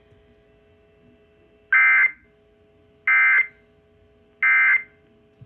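Emergency Alert System end-of-message code: three short bursts of high-pitched SAME data tones, about 1.4 seconds apart, marking the end of the warning broadcast.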